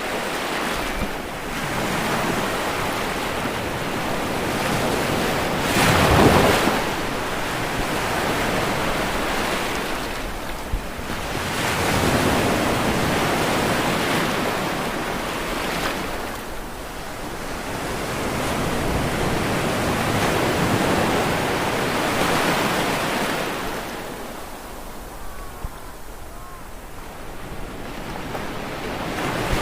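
Ocean waves washing onto a shore, in surges that rise and fall every few seconds. The loudest surge comes about six seconds in, and there is a quieter lull near the end.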